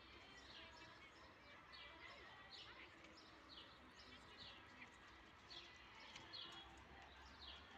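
Near-silent ambience in which a small bird repeats short, falling chirps, roughly one or two a second, over a faint low background rumble.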